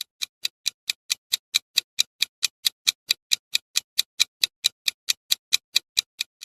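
Steady clock-like ticking of a countdown timer sound effect, about four to five ticks a second.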